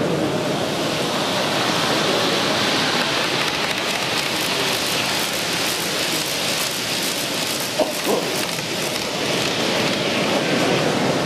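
HO scale model freight train rolling along the track: a steady rushing rattle of small wheels with fine rapid clicking, easing off near the end as the train clears. Two short clicks about eight seconds in.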